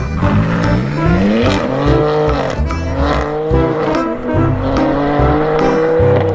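Race car engine sound, its pitch rising and falling, over background music.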